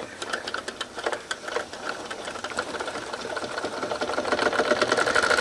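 Wilesco D222 toy steam engine starting up on live steam as its valve is cracked open: a rhythmic clicking beat that speeds up and gets louder, over a rising hiss of steam.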